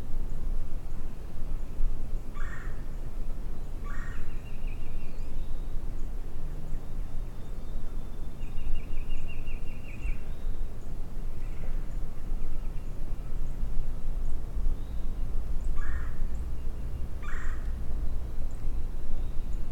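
Wild turkey gobbling four times, in two pairs: a pair a few seconds in and another near the end. A steady low wind rumble runs underneath.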